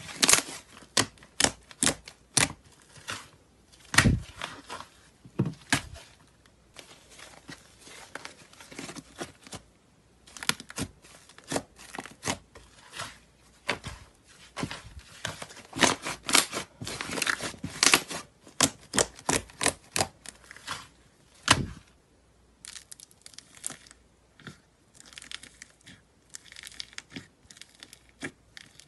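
Slime being squished, pressed and stretched by hand: an irregular run of sticky clicks, pops and crackles as air pockets burst. In the last few seconds fingers poke into slime packed with foam beads, giving a finer, denser crackle.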